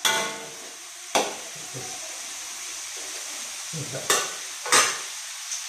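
Food sizzling in a wok with a steady hiss while a metal spatula stirs and scrapes it, with four sharp metal clinks, the loudest near the end.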